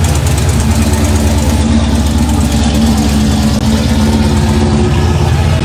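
Classic car engines idling and cruising at walking pace, a steady low sound, with a steadier hum coming in about half a second in and fading out near the end.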